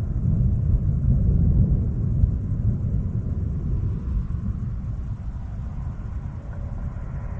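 Low rolling rumble of thunder, slowly dying away after the first couple of seconds.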